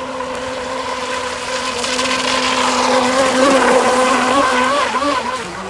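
Brushless electric motor of a Segad RC catamaran speedboat running flat out on water: a steady whine with a hiss of spray. It grows louder as the boat passes close, about three to four seconds in, then drops off near the end.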